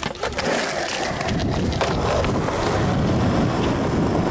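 Skateboard wheels rolling on concrete, a steady rumble with wind on the microphone, broken by sharp clacks of the board near the start and once a little under two seconds in.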